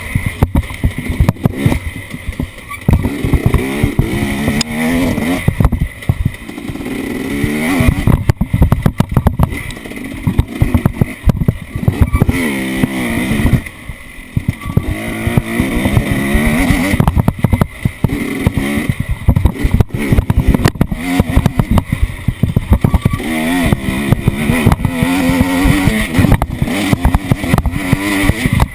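Off-road vehicle engine revving up and down repeatedly under load, with frequent knocks and buffeting.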